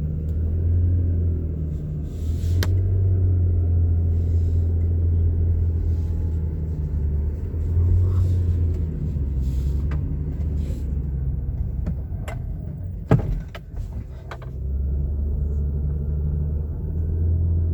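2007 Toyota Highlander Hybrid's 3.3-litre V6 pulling hard up a hill: a loud, steady low drone from the engine bay that eases briefly about two-thirds through, with a few sharp clicks. This is the noise the owner hears only under heavy load, climbing or accelerating hard, and not at light throttle.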